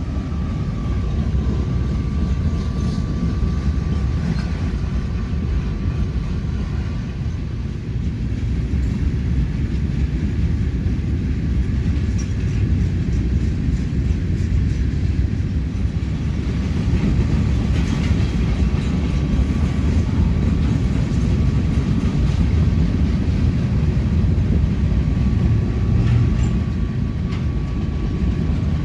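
Freight train cars rolling past: a steady low rumble of steel wheels on the rails, with faint ticks and a thin, steady high tone near the start and again near the end.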